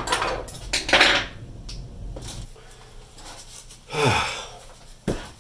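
A man's heavy breaths and a sigh, with a few small clicks of parts and tools being handled.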